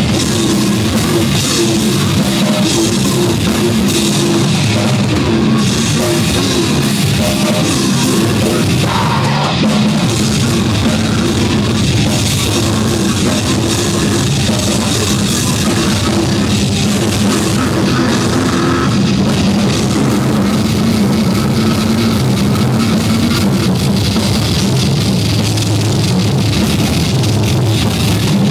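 Death metal band playing live and loud: heavily amplified guitars over a drum kit, without a break.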